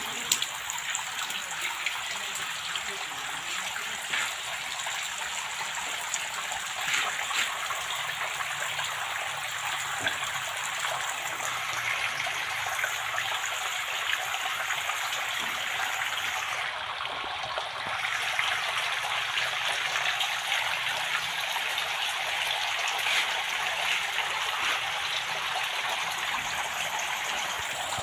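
Water running down a corrugated cellulose evaporative cooling pad, a steady trickling rush, as the pad's water flow is tested.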